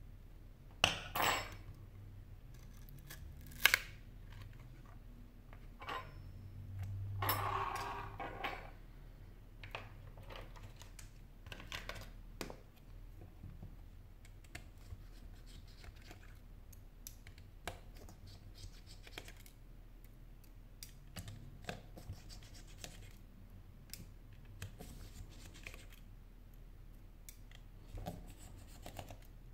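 Small hand tools working on a Sony Xperia Z3 Compact's frame: a few sharp clicks early on, a longer scrape about a quarter of the way in, then light scattered ticks as a metal pry tool and a small screwdriver work the phone apart.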